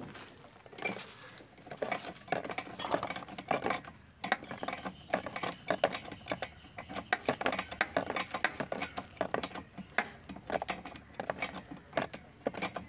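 Irregular metallic clicks and clinks from a spark-plug spanner and metal engine parts as a loosened spark plug is worked out of the scooter's engine.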